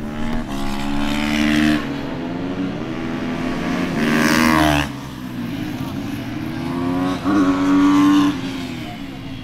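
Racing motorcycles lapping a tight circuit, their engines revving up and dropping back with gear changes as they pass one after another. The loudest passes come about halfway through and again near the end.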